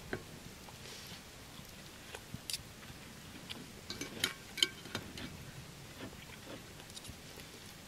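Scattered light clicks and clinks of eating utensils, a few ringing briefly, busiest about four to five seconds in.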